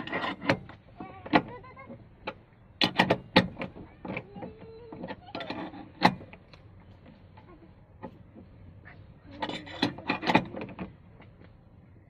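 Irregular metal clicks and clinks of an L-shaped socket spanner working the seat belt anchor bolt on a car's B-pillar, in short clusters with one sharp loud click about six seconds in.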